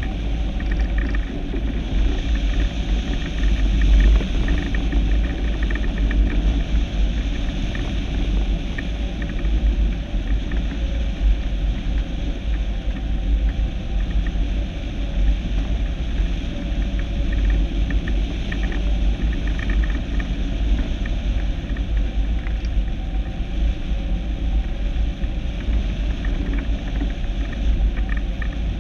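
Wind buffeting the microphone: a heavy, steady low rumble with a hiss above it.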